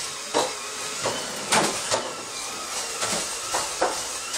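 A few short knocks and clunks from a pull-out kitchen pantry cabinet and the containers stored in it being handled, over a steady hiss.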